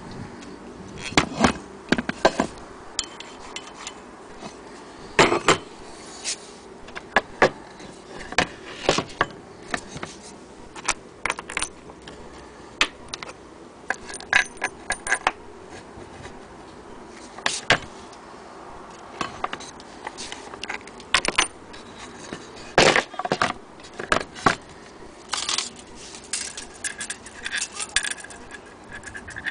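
Irregular sharp clicks, knocks and light metallic clinks as the antique cast-iron hand-crank sewing machine and its wooden base are handled.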